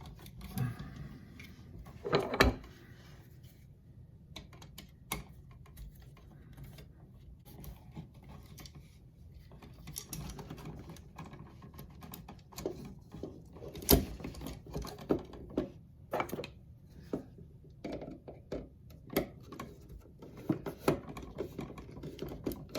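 Scattered small clicks, taps and scrapes of hands working stiff copper wires and a screwdriver into the load-side terminals of a GFCI outlet, with a few sharper knocks, the loudest about two seconds in and again midway.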